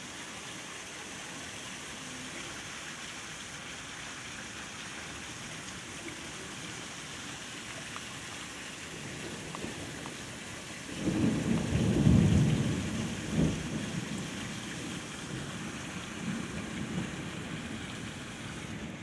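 Heavy rain falling steadily in a thunderstorm. About eleven seconds in, a loud low roll of thunder builds, rumbles for a few seconds with one sharp crack, and fades back into the rain.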